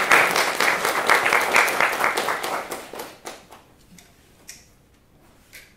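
Audience applauding, dying away about three seconds in, with a couple of last lone claps near the end.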